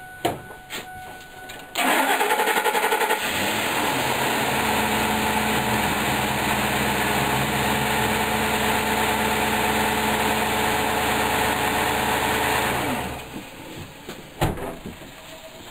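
Ford F-150's Triton V8 cranked by the starter for about a second and a half, catching and idling steadily, then switched off a few seconds before the end. It runs nice and quiet with its blown-out spark plug thread repaired by an insert.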